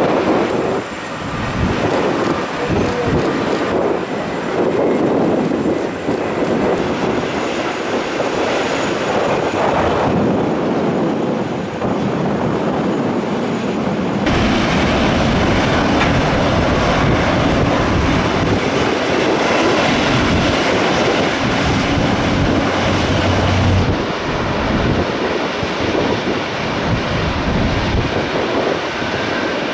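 Passenger airliner engines, a loud steady rush of engine noise, with an abrupt change in tone about fourteen seconds in.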